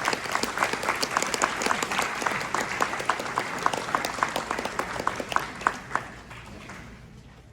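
Audience applauding after a band piece ends, with dense clapping and a few sharp claps close by; it dies away over the last second or so.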